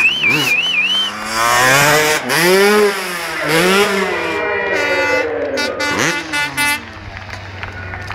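Motocross bike engine revving up and falling back several times as the rider rides over the jumps, dying away near the end. A short warbling whistle sounds at the very start.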